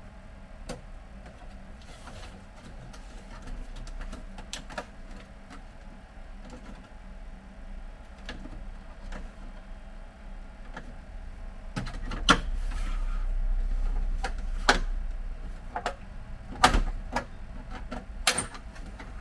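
Plastic clicks, snaps and knocks of a Brother DCP-T226 printer's snap-fit cover flap being pried and worked loose by hand, with a stretch of louder low handling rumble a little past the middle and the sharpest snaps near the end.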